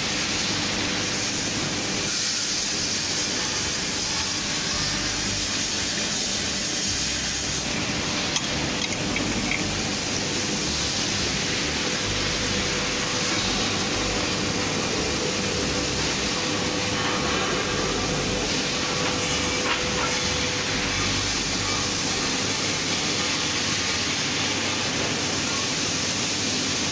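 Steady hissing noise with a faint steady hum underneath.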